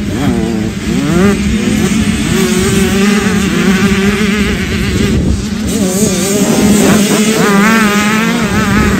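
Small two-stroke youth motocross bike engines running on the track, the pitch rising and falling over and over as the riders work the throttle and shift through the turns.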